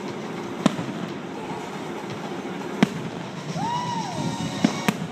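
Aerial fireworks shells bursting: four sharp bangs, the last two close together near the end, over a steady background din. About halfway through a brief tone rises and falls.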